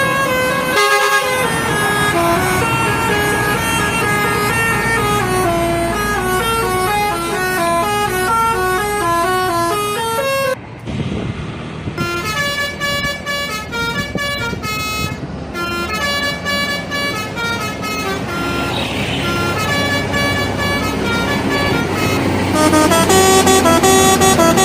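Indonesian bus telolet horns, multi-note air horns playing quick stepped melodies over and over. Several passes are spliced together, with a break about ten seconds in, and it is loudest near the end.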